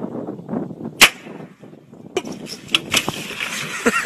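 Water splashing, with one loud sharp smack about a second in. From about two seconds comes a steady rush of water spray with several knocks, as from a boat's hull running over waves. A few short squeals come right at the end.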